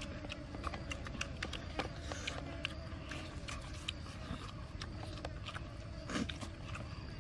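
Chewing and lip-smacking as food is eaten open-mouthed, an irregular run of short wet clicks several times a second, over a steady low rumble.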